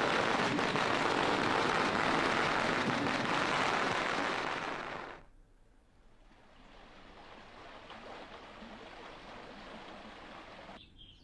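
A loud, steady rushing noise that drops away suddenly about five seconds in, leaving a faint steady hiss.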